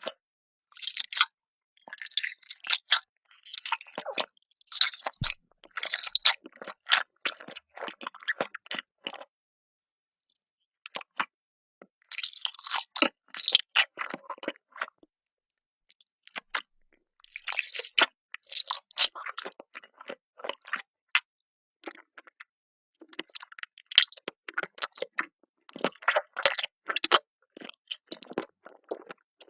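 Crunchy food being chewed close to the microphone: bouts of crisp crunching separated by short pauses of a second or two.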